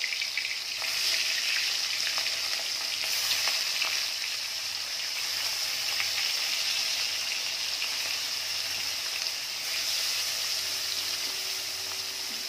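Salt-and-turmeric marinated fish pieces frying in hot mustard oil in a kadhai: a steady sizzle with scattered small pops and spatters as more pieces go into the oil one by one.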